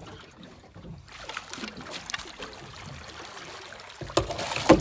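Water splashing as a hooked fish thrashes at the surface and is scooped into a landing net, loudest near the end.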